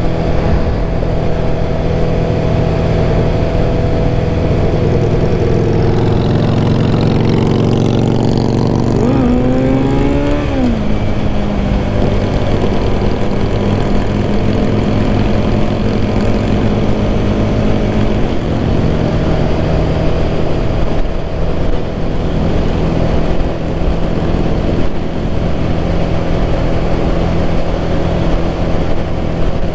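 Kawasaki ZX-11 inline-four motorcycle engine under way, rising in revs about ten seconds in and dropping sharply at an upshift, then running at a steady cruise. A constant rush of wind and road noise lies under the engine.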